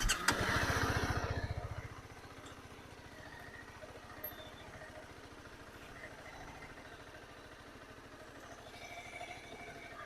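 Motorcycle engine running on the move, louder for the first two seconds, then settling to a lower, steady beat.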